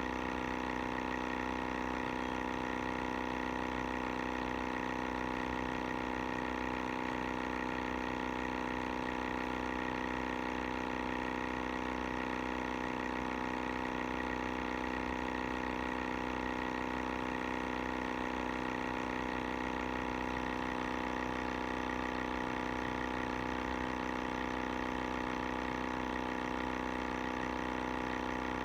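Sibata air sampler's pump motor running with a steady, even drone.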